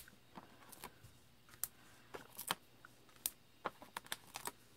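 Hands handling cardstock and pressing small adhesive dots onto a paper card: scattered faint taps, clicks and paper rustles.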